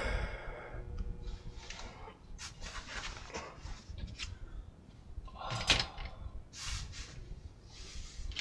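Scattered rubbing and handling noises as the radio chassis is handled on the bench, with the loudest about six seconds in.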